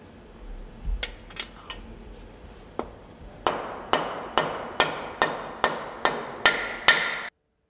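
Mallet striking a part on a Nissan GT-R engine: a few light clicks, then about nine evenly spaced strikes, roughly two and a half a second, each ringing briefly. The sound cuts off suddenly near the end.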